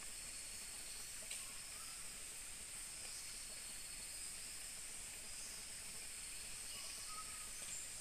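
Steady, high-pitched hiss of a rainforest insect chorus, with a couple of faint short calls about a second in and near the end.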